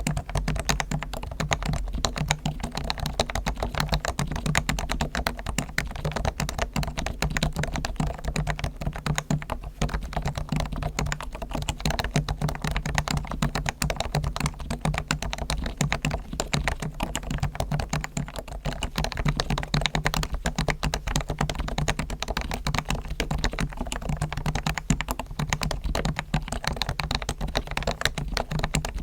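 Continuous fast typing on a Topre Realforce R1 keyboard with electrostatic capacitive switches: a dense, unbroken run of keystrokes. The switches are fully lubricated (Krytox on springs and sliders), with tuned, lubed stabilizers and foam dampening inside the case.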